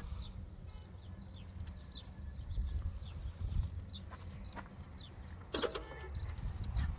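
Wind rumbling on the microphone, with small birds chirping throughout and a short livestock bleat, as from a goat or sheep, about five and a half seconds in.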